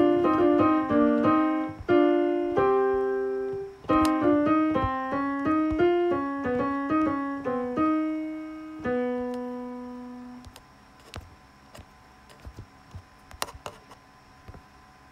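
Piano playing a melodic passage in a small room, closing on a held note that fades away about ten seconds in; then a pause of near silence with a few faint clicks before the playing starts again.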